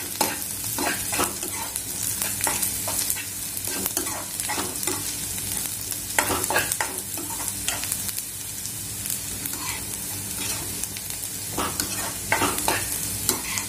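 A metal spoon stirring onions, garlic and green chillies frying in oil in a non-stick kadhai: a steady sizzle with irregular scrapes and taps of the spoon against the pan.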